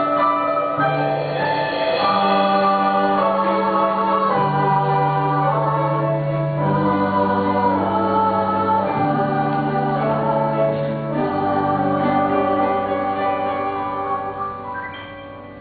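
Slow music of sustained chords over a held bass note that changes every couple of seconds, fading out near the end.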